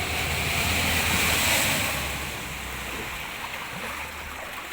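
Floodwater rushing and splashing, loudest about a second or two in and easing after, with a low steady hum underneath that stops near the end.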